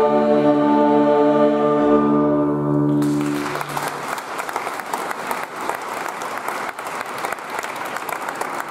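Choir with strings and organ holds the final chord of a hymn, which stops about three seconds in; the audience then breaks into applause that carries on to the end.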